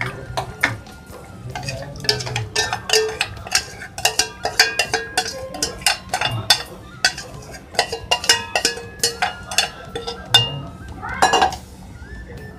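A spoon scraping and clinking against a steel bowl as a thick yogurt-spice mixture is scraped out into a pot of chicken curry: a quick, irregular run of sharp metallic clicks and scrapes.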